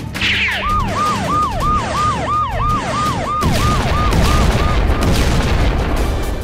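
Siren sound effect: a fast rising-and-falling wail, about three cycles a second, that fades out about five seconds in, over background music. About halfway through, a loud rushing noise comes in.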